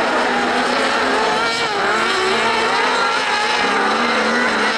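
Engines of several kart cross racing buggies running together, their overlapping notes rising and falling as the drivers work the throttles around the dirt track.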